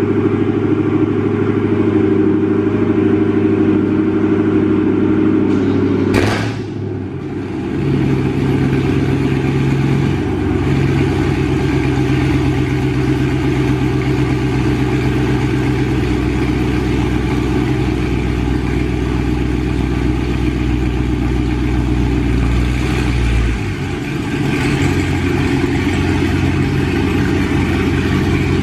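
2019 Dodge Charger Scat Pack's 6.4-litre HEMI V8, with mid-muffler delete and catless midpipes, idling high after a cold start. A sharp click comes about six seconds in, the idle note shifts to a deeper drone soon after, and it changes again near the end.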